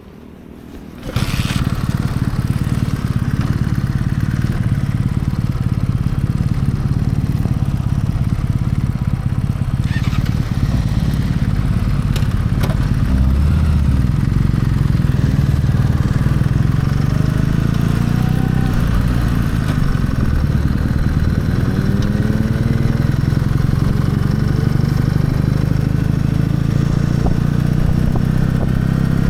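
Kawasaki W650 motorcycle's air-cooled parallel-twin engine, coming on suddenly about a second in and running steadily, with a few rising glides in pitch in the second half.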